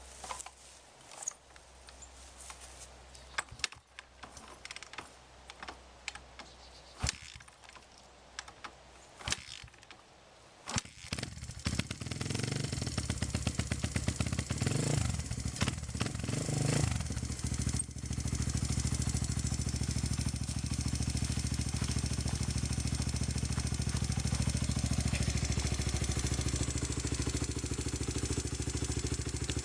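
Clicks and knocks, then a freshly rebuilt Honda XR120 (XR100 with a BBR 120 big bore kit and FMF PowerCore 4 exhaust) single-cylinder four-stroke fires up about 11 seconds in. It is revved a few times, then settles to a steady idle on its first start after the rebuild.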